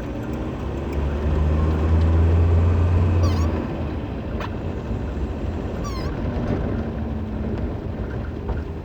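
Car driving slowly over a dirt road, heard from inside the cabin: steady engine and tyre rumble, louder for a couple of seconds near the start, with two brief high chirps about three and six seconds in.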